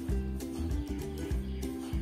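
Background music: a melody of steady pitched notes in an even, repeating rhythm.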